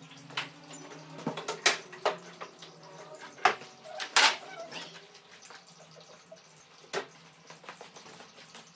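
Scattered knocks and clacks of handling around a grand piano and its wooden bench as they are put away, about seven sharp strikes over the first seven seconds. A faint steady hum runs under them.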